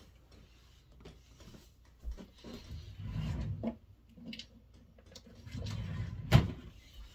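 Someone rummaging for a makeup product: faint knocks and rustling handling noise, with one sharp click about six seconds in.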